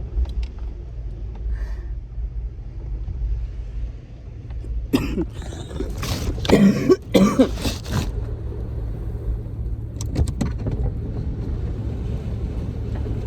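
Vehicle cabin rumble from the engine and road while driving, steady and low. A few loud, short noises break in between about five and eight seconds in.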